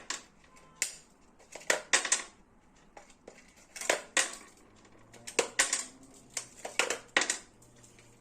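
Corroded, leaked batteries being pried out of a remote control's plastic battery compartment: a series of irregular sharp clicks and clinks, several in quick clusters, as the cells come loose and are set down.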